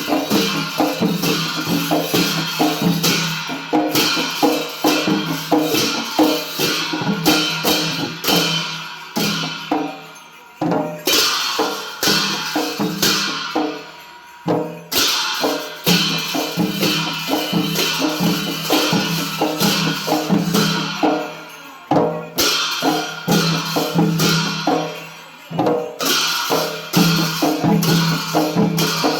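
Traditional Newar percussion music for a Lakhe dance: drums and clashing cymbals play a fast, steady rhythm, with a few brief breaks in the beat.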